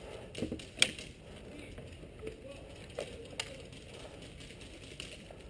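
A few scattered sharp clicks and knocks over a low background hiss, the loudest a little under a second in and two more around three seconds in.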